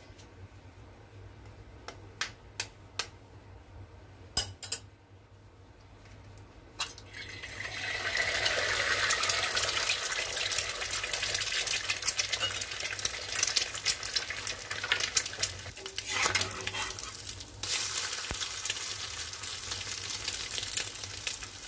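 A few sharp taps, then an egg frying in hot oil on a tawa: a loud steady sizzle builds from about eight seconds in. Near the end a metal spatula scrapes under the egg.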